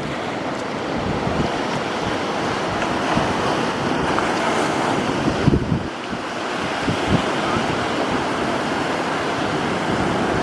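Sea surf breaking and washing up a sandy beach, a steady rushing that swells and eases, with wind buffeting the microphone in a few low thumps around the middle.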